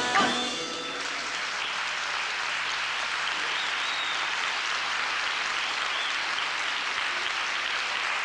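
The band's final note dies away within the first second, then a theatre audience applauds steadily.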